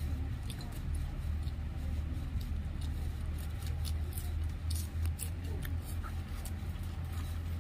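Scattered small clicks and smacks of someone eating by hand, picking at meat on a plate and chewing, over a steady low hum.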